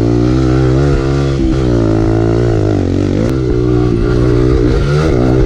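Kawasaki KLX 140L's single-cylinder four-stroke engine under hard riding on a dirt track. The pitch climbs and drops over and over as the throttle is worked and gears change.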